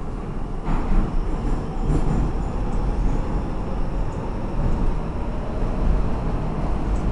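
Interior of a Saint Petersburg Metro 81-556 NeVa subway car running through a tunnel: a steady rumble of wheels and running gear with a few faint knocks.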